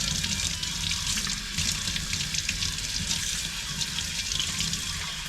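Hot tap water running and splashing into a kitchen sink as an espresso machine's portafilter is rinsed clean under it.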